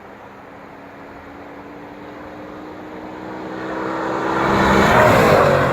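Lexus IS-F with Sikky headers, its V8 exhaust growing louder as the car approaches. It passes about five seconds in, and the engine note drops in pitch as it goes by.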